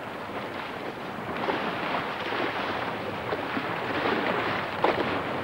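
Wind buffeting the microphone, with sea water rushing and splashing around a sailing boat under way. It grows louder about a second and a half in.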